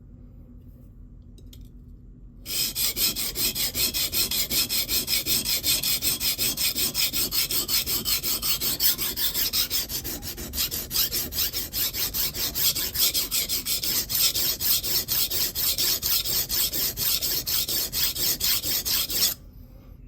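Knife blade being ground with rapid back-and-forth strokes on a DMT extra-coarse (about 220 grit) diamond plate, a steady, gritty rasping that starts abruptly a couple of seconds in and stops abruptly near the end. The steel is being ground to form a new edge and raise a burr after the damaged edge was removed.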